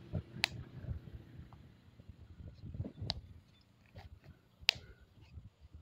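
Faint handling noise of hands working a crocheted yarn piece while hand-sewing and tying off the thread with a needle: soft scattered rustles and bumps, with a few sharp clicks, the loudest about half a second in and near the end.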